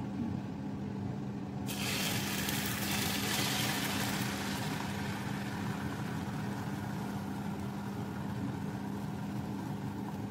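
Beaten egg and milk poured into a frying pan of hot olive oil and sizzling: the sizzle starts suddenly about two seconds in, is loudest for the first couple of seconds, then settles into a steady fry. A steady low hum runs underneath.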